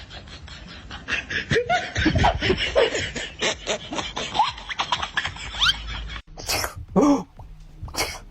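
Laughter in rapid short bursts, then after an abrupt cut a few separate short sharp sounds.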